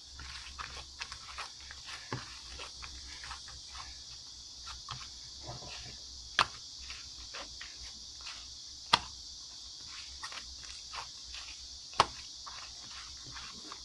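Slime being squeezed and pressed by hand, giving many small clicking pops, with three louder sharp pops about three seconds apart.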